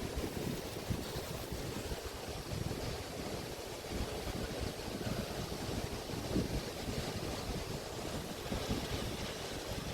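Waves washing onto a sandy beach, with wind buffeting the microphone in a steady low rumble.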